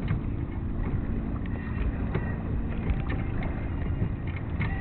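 Wind rumbling on the microphone aboard a sailboat under sail, with scattered small clicks over it.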